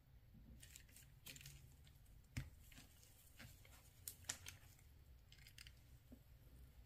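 Faint clicks and scraping of a Mercedes-Benz key fob's plastic housing being handled: short rustling scrapes early on, one sharp click about two and a half seconds in, and two more about four seconds in.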